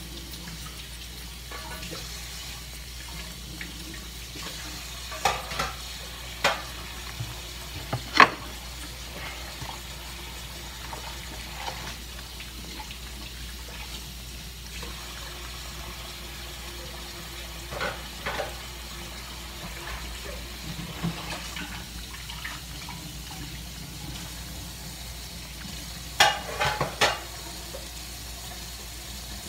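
Baby opossum chewing and smacking its food with its mouth open: scattered wet clicks that come in small clusters, the loudest about eight seconds in and a run near the end, over a steady low hum.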